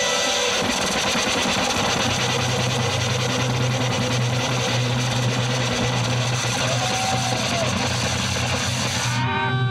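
Live metal band's amplifiers making dense distorted guitar noise, with a steady low bass drone coming in about two seconds in, as a noise intro ahead of the first song. Near the end the hiss thins and held pitched feedback tones remain.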